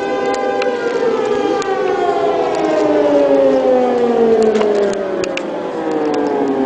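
Civil-defence air-raid siren sounding a rocket-attack warning. Several overlapping tones slide slowly down in pitch, loudest about halfway through.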